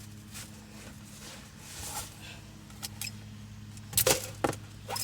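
Handling noise: light rustling and a couple of small clicks, then two sharp knocks near the end, over a steady low hum.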